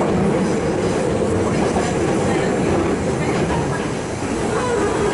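Running noise heard from inside a Hankyu electric commuter train car on the move: a steady rumble of steel wheels on the rails.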